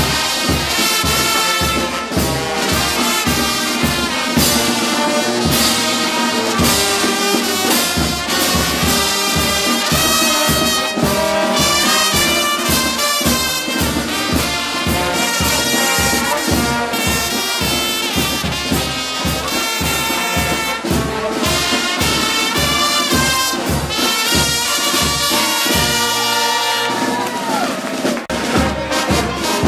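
Brass band music with trumpets and trombones over a steady drum beat of about two strokes a second, played for dancing; the bass drum drops out briefly near the end, then comes back.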